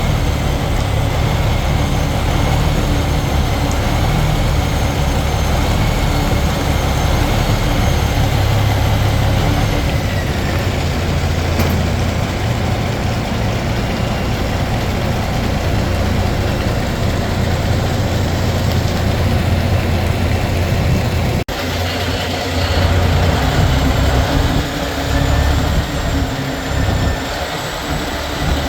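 Vehicle running steadily: a low engine hum under a wash of road or travel noise. It breaks off sharply about two-thirds of the way through and resumes with a slightly different, more uneven sound.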